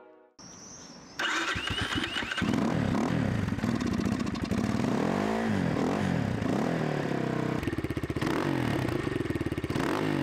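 Freshly assembled Sano MRZ 250 dirt bike's Zongshen four-stroke engine starting about a second in. It is revved up and down several times with the throttle, then settles into a steady idle near the end.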